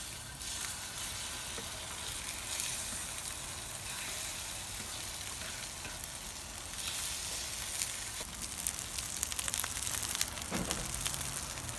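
Beaten iguana eggs mixed with tomato, shallot and sausage sizzling in hot oil in a frying pan, a steady hiss with crackling that grows busier in the last few seconds.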